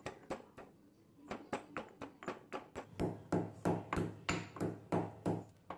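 Stone pestle pounding black peppercorns in a stone mortar, crushing them coarsely. A few scattered strikes at first, then a steady beat of about three strikes a second that turns heavier and thuddier halfway through.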